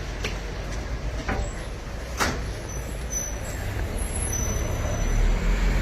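Street noise with a motor vehicle running nearby, its low rumble growing louder near the end, and a few sharp clicks or knocks, the loudest about two seconds in.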